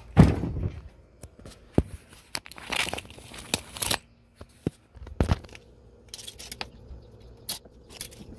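Handling and rummaging noise: a loud knock just after the start, scraping and rustling a couple of seconds in, then scattered sharp clicks.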